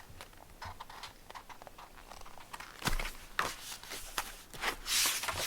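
Quiet handling of a paper picture book: a few light taps and knocks, and a short papery rustle near the end as a page is turned.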